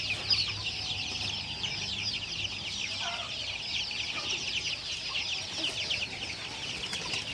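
A flock of young white chickens peeping constantly: a dense chorus of many short, high, falling peeps overlapping without a break.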